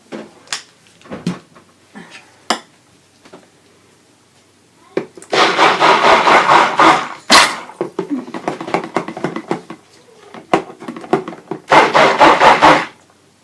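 Stick blender run in two pulses in cold process soap batter, one of about two seconds and a shorter one near the end, bringing the batter toward trace. A few light knocks and clicks of utensils come before it.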